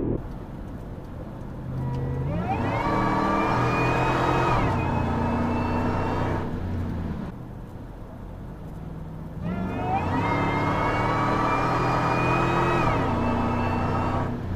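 High-performance car engine accelerating hard twice, each pull rising in pitch for about three seconds, holding, then backing off, with a high whine riding over the engine note.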